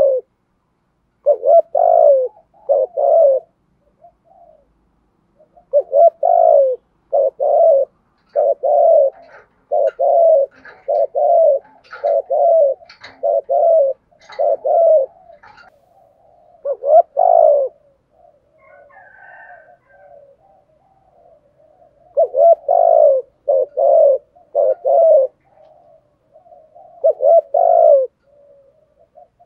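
Male spotted dove giving its rapid gù coos: short low coo notes in runs of two to several, with pauses between runs. Faint chirps of small birds come in between.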